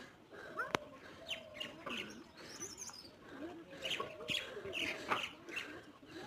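Birds chirping: many short, quick calls overlapping one another, with a single sharp click about a second in.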